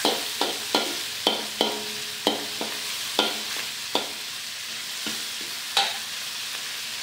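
Shrimp, diced carrot and sambal belacan sizzling in a hot wok while a metal spatula stirs them, its edge clacking against the pan about twice a second for the first four seconds, then once more after a pause.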